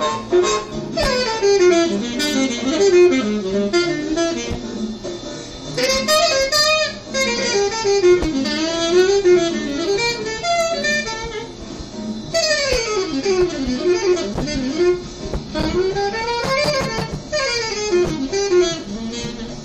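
Instrumental music playing throughout, its notes bending and sweeping up and down in pitch.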